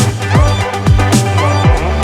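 Electronic dance music with a heavy beat and falling bass drops about twice a second, in the style of dubstep.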